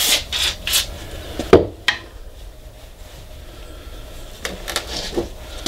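Paper shop towel rustling as it is handled and rubbed along a greasy metal shaft, with two sharp knocks about a second and a half in, then quieter rubbing.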